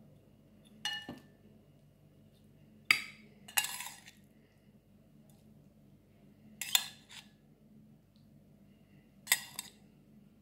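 Metal serving tongs clinking against ceramic plates while food is served: about five short, separate clinks with a brief ring, a couple of seconds apart.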